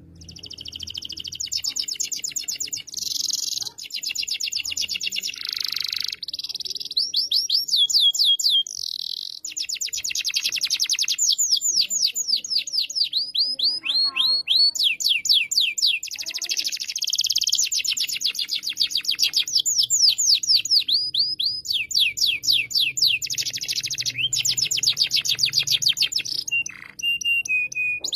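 Domestic canary singing in full voice: a long, loud song of rapid trills and rolls, each phrase a run of fast repeated notes, some sweeping down in pitch, with only a brief break near the end.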